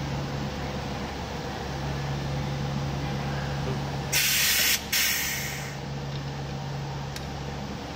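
A steady machine hum with a low tone that comes and goes, then a loud burst of hissing about four seconds in that breaks off briefly and fades out over a second or so: compressed air venting from a tap-spindle leak-test rig.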